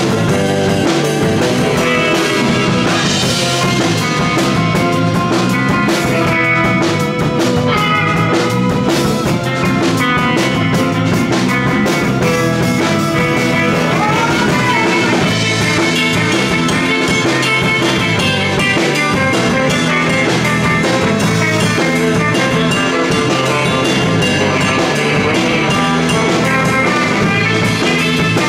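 Live garage and surf rock band playing a song: electric guitars over a drum kit, loud and steady throughout.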